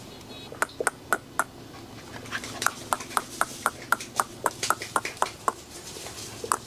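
White Bắc Hà puppy feeding from a stainless steel bowl, making quick clicks against the metal. A few scattered clicks come first, then an even run of about four a second.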